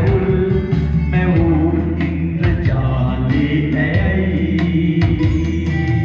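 Men singing karaoke into microphones over a backing track played through a party loudspeaker.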